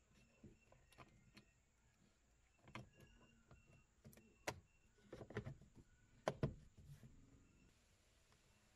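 Plastic clicks and knocks as a Toyota Corolla's power window switch panel is handled and pressed back into the door armrest trim. The sharpest snaps come a little past the middle.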